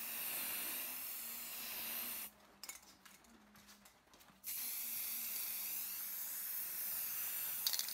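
Spray paint hissing steadily from a nozzle in two long bursts as black paint is sprayed onto a speaker driver unit's metal back plate, with a short break a couple of seconds in.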